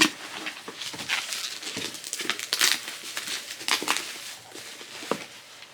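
Soft plastic protector sleeve crinkling and rustling in irregular bursts as a boxed Funko Pop is handled and slid out of it.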